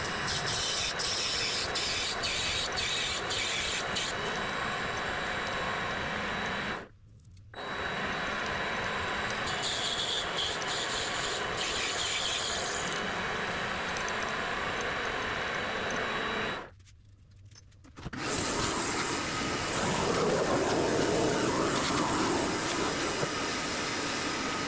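Vevor MX400 mini lathe running steadily while machining a part, with a faint high whine. The sound cuts out briefly twice.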